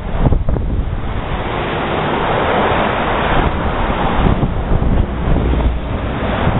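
Breaking ocean surf with wind buffeting the microphone, a steady rush of noise that swells for a couple of seconds in the middle, over a gusty low rumble.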